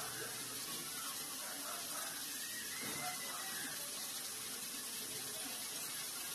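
Chicken simmering in a yogurt-based gravy in a wok: a steady, soft sizzle and bubble of the hot liquid.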